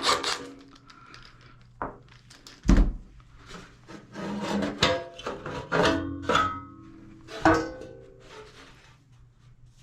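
Scattered knocks and clunks of metal parts being handled while a fan coil unit's blower assembly is taken apart, some with a short ringing tone, about six in all and the loudest about three seconds in.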